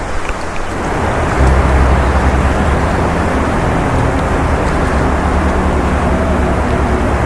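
A motor vehicle running close by: a loud, steady low rumble that swells about a second in and then holds.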